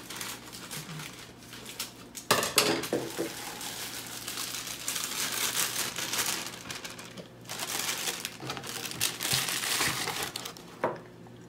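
Clear plastic bag of cake mix crinkling as it is cut open with scissors and shaken out into a plastic mixing bowl. The crinkling comes in crackly spells, with a sharp click near the end.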